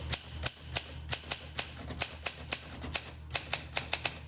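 1962 Olympia SM7 manual typewriter keys being struck in quick succession, a run of sharp clacks about four or five a second that come closer together near the end.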